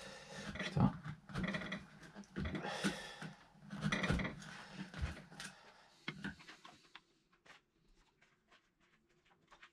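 Hand tool scraping on wood in repeated rough strokes, which stop about six seconds in; after that only a few faint, light clicks.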